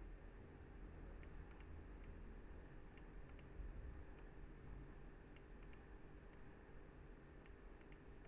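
Faint computer mouse clicks, single and in quick pairs or triples, every second or so, over a low steady hum.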